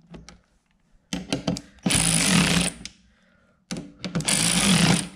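Cordless electric ratchet driving down a mower-deck spindle's mounting bolts, in two runs of about a second and a half each. Each run opens with a few quick clicks.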